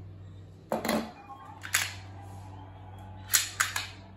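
Glock 45 pistol being cleared, its slide and action worked by hand: a series of sharp metallic clicks and clacks. There is one about a second in, another near two seconds, and a quick run of three near the end.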